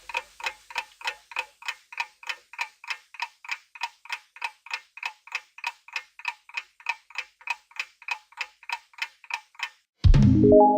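Clock-style ticking sound effect, about three even ticks a second, counting down the time to answer. Near the end it stops and a loud hit with a quick run of rising bell-like notes sounds, marking time up.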